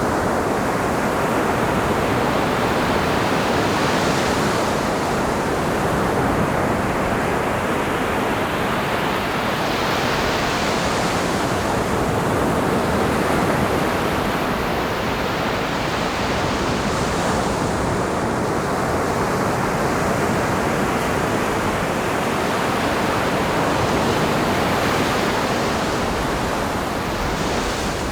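Ocean surf: a constant wash of breaking waves, with a fresh wave crashing in and hissing up the shore every six or seven seconds.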